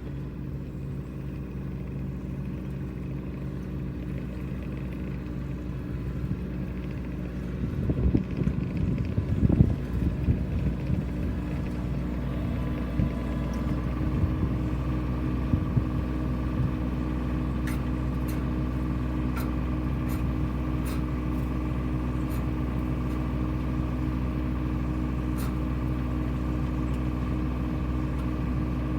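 An engine-driven harvesting machine running steadily, with a rougher, louder stretch about a third of the way in and a few faint ticks later on.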